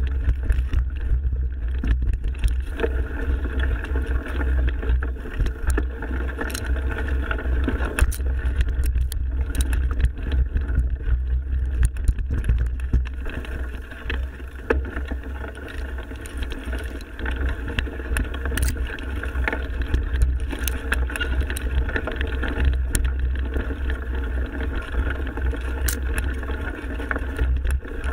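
Mountain bike riding on a forest trail, heard through a bike-mounted action camera: a steady low rumble of wind and rolling tyres, with scattered clicks and rattles from the bike over the bumps.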